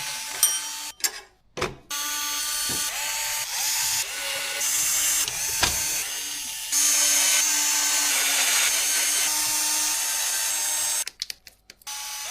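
Electric screwdriver whirring as it drives screws, in several short stretches joined together with abrupt changes in pitch and level.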